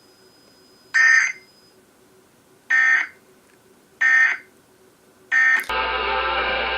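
Emergency Alert System digital data tones: short, buzzy bursts of warbling tones about a second apart, the end-of-message signal that closes the test. Near the end the sound switches to a longer, duller data burst from another station's broadcast, carried over a low hum.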